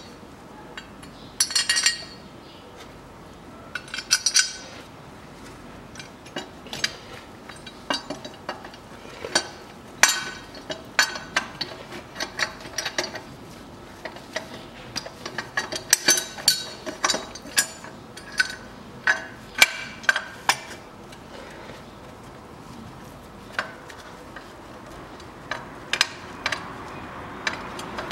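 Irregular metal clinks and taps of hand tools and bolts against the alternator and its steel mounting bracket as the alternator is being bolted in. The clinks come in clusters with short quiet gaps and are busiest through the middle, then thin out near the end.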